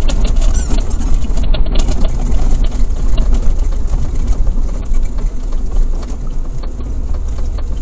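Camper van on the move, heard from inside the cab: a loud, steady engine and road rumble, with many small ticks and rattles running through it.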